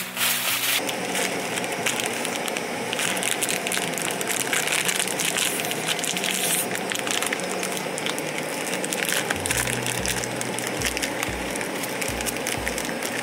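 Food sizzling in hot fat in a pan, a steady dense crackle of spattering grease.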